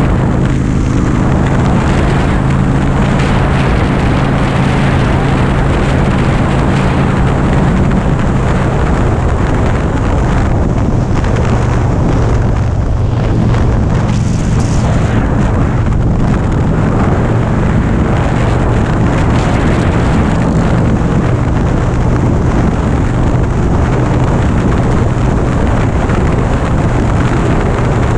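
Harley-Davidson Dyna Street Bob's V-twin engine running steadily at highway cruising speed, with heavy wind noise on the microphone.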